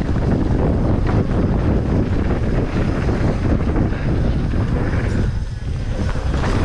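Wind buffeting the camera microphone of a mountain bike descending fast, mixed with tyre noise and the rattle of the bike, easing off briefly about five and a half seconds in.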